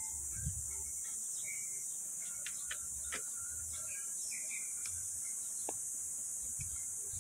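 A steady high-pitched insect drone, with a few short bird chirps and faint clicks.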